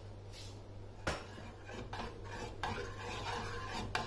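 Metal spoon stirring a thin watery mixture in a stainless steel pot, scraping and clinking against the pot's sides and bottom. It starts with a knock about a second in and continues steadily.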